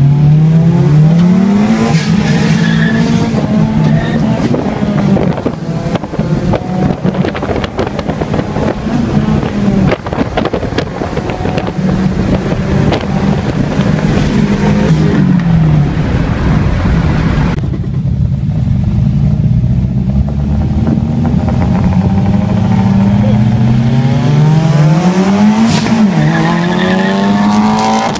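Turbocharged Honda Civic engine heard from inside its cabin, revving hard in repeated pulls, its pitch climbing and dropping back at each shift, with wind and road rush; the uploader says the Civic's clutch was slipping.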